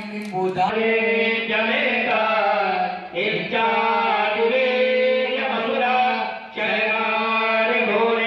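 Devotional mantra chanting in long, held melodic phrases, with short breaks about three and six and a half seconds in.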